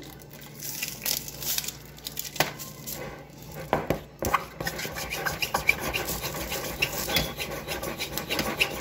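Plastic sprinkle jar being handled and its lid twisted: rubbing and scraping, with a run of small clicks from about three and a half seconds in.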